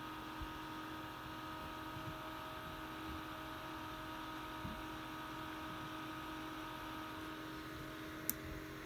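A steady hum made of several steady tones, with a few soft low thumps and a short sharp click near the end.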